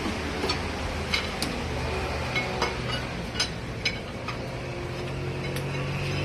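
Irregular light metallic clinks and taps of tools and engine parts being handled, over a steady low hum.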